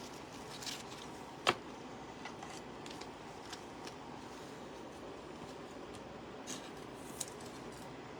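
Trading cards being handled: faint sliding and rustling of cards, a few light ticks, and one sharp click about a second and a half in.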